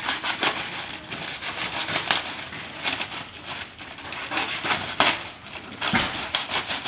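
A knife cutting and tearing open a sealed shipping package: a dense run of scratchy crackling and clicks from the tape, plastic and cardboard, with a sharper knock about five seconds in.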